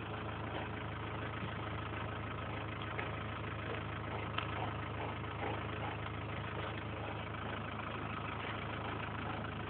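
An engine idling steadily, with a few faint clicks.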